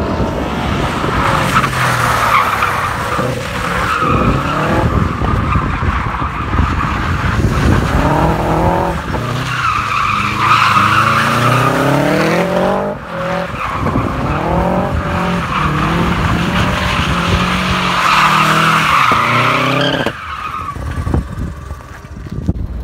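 Subaru WRX drift car sliding: the engine revs up and down again and again while the tyres squeal in long screeches. About 20 seconds in the squeal stops and the engine drops away.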